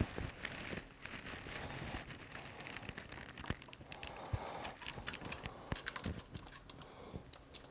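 Scattered light clicks and knocks of hand tools and metal parts being handled during transmission disassembly, with a few faint high squeaks.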